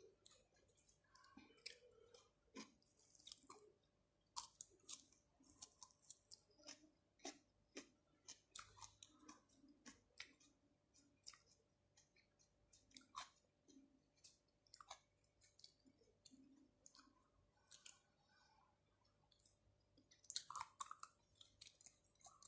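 A person chewing raw shrimp and octopus with cucumber: wet, sticky mouth clicks and smacks coming irregularly, with a louder flurry near the end.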